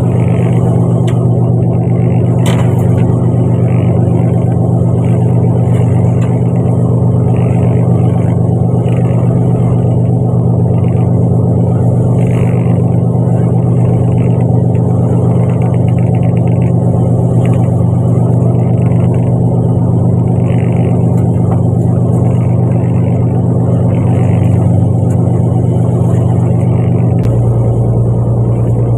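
Fishing boat's engine running steadily under way, a loud constant hum, with a sharp click about two seconds in and a change in the engine note near the end.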